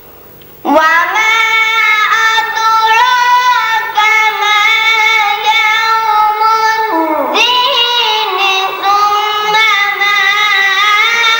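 A boy's voice reciting the Quran in the melodic chanted style of tilawat, holding long, wavering notes. It begins about a second in, with a short pause for breath around the middle.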